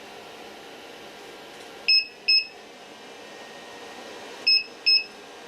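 Power inverter's low-voltage alarm beeping as its input voltage is turned down: two quick high beeps, then two more about two and a half seconds later, over a steady fan hiss.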